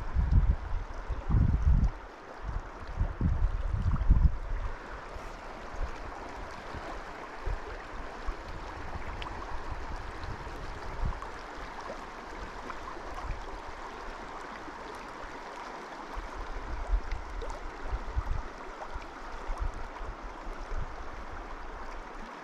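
River water flowing, a steady wash, with bursts of low rumble in the first four seconds and again from about sixteen seconds in.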